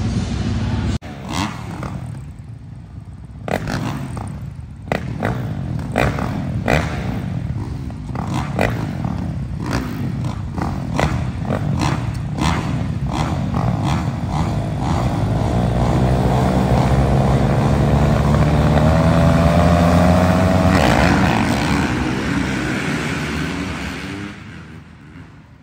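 Dirt bikes racing on an arenacross track: engines rev in quick short bursts for several seconds, then one bike's engine rises in pitch and grows loudest as it passes close, before fading away near the end.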